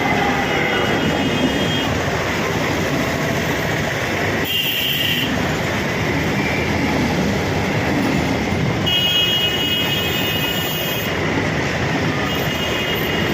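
MEMU electric multiple-unit train running along the track, a steady loud rumble and rattle. Brief high-pitched tones come in twice, about four and a half seconds in and again from about nine to eleven seconds.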